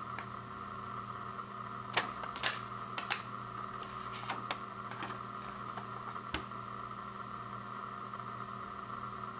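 A folded paper instruction sheet being handled and unfolded, giving a few short paper crinkles and snaps in the middle, over a steady background hum.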